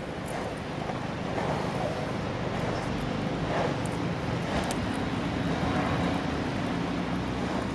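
City street traffic: a steady low rumble of engines and tyres, with vehicles passing, getting a little louder about a second in.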